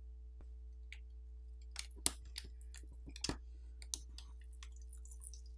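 A few faint, scattered clicks and taps of a small tool and parts being handled during the phone's disassembly, over a low steady hum.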